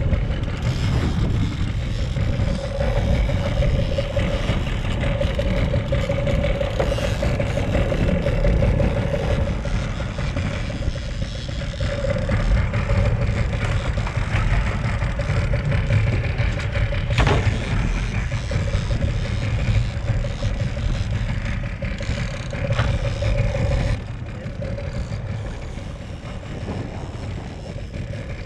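Outboard motor of a small fishing boat running steadily under way, with wind buffeting the microphone and water rushing past the hull. There is a single knock about two-thirds through, and the sound drops in level near the end.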